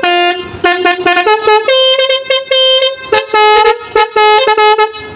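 Truck-mounted basuri musical air horn being test-sounded, playing a quick tune of short notes at changing pitches with brief gaps between them. It stops just before the end.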